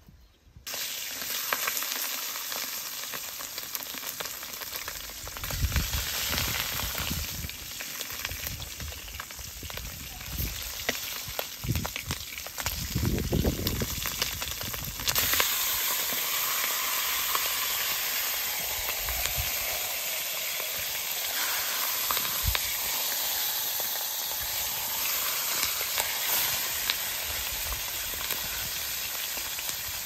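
Slices of meat sizzling in a hot wok over a wood fire, with a metal spatula now and then scraping and turning them in the pan. The sizzle gets louder about halfway through.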